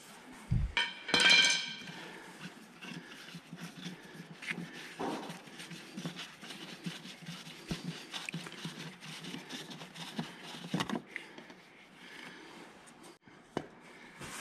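Small clicks and light plastic rustling as hands handle a diesel fuel filter bowl and its filter element, with a brief high-pitched squeal about a second in.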